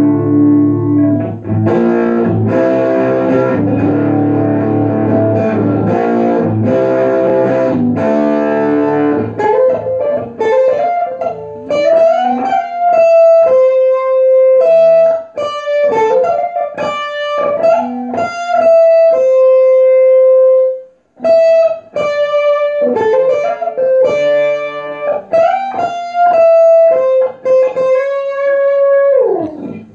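Stratocaster-style electric guitar played through an amplifier: strummed chords for the first third, then a single-note lead melody with string bends and long held notes, the last one sliding down in pitch at the end.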